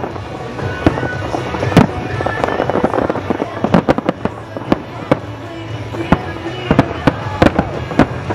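Aerial fireworks shells bursting in a rapid, irregular series of sharp booms and cracks, more than a dozen in a few seconds, over a steady rumble from the display.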